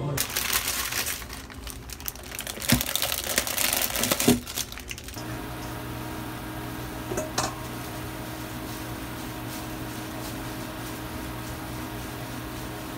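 Crinkling and rustling of hands handling things, with a few knocks. About five seconds in this gives way to a steady low hum from an induction cooktop, with a pot of instant ramen boiling on it.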